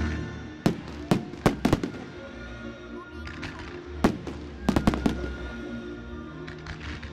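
Fireworks bursting in two quick clusters of sharp bangs, the first in the opening two seconds and the second about four seconds in. The display's music soundtrack plays steadily underneath.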